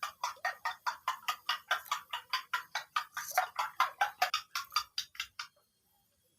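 Rapid, even knocking strokes, about five a second, stopping about five and a half seconds in, typical of kitchen work such as chopping on a board.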